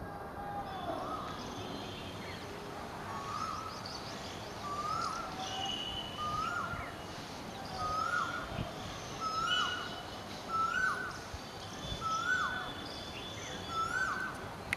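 Birds calling outdoors: one bird repeats a short, rising whistled note about once a second, each a little higher than the last, while other birds chirp and whistle higher up. A steady background hiss lies under the calls.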